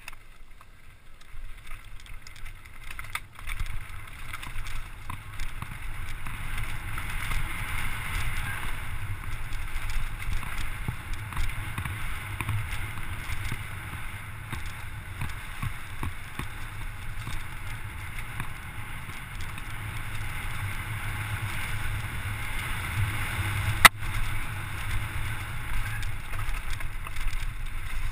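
Enduro mountain bike descending a rough, rocky gravel trail at speed: wind rushing over the microphone, with the tyres crunching over stones and the bike rattling in many small clicks. The rush grows about two seconds in as the bike picks up speed, and there is one sharp knock near the end.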